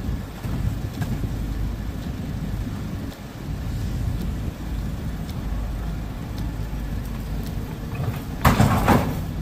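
Heavy diesel plant running steadily: a tracked excavator working beside a site dumper. About eight and a half seconds in comes a loud crash lasting about half a second, as the excavator's bucket drops demolition rubble into the dumper's steel skip.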